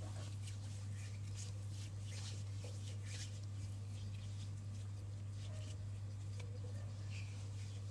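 Soft, scattered little clicks and rustles close to the microphone, over a steady low electrical hum.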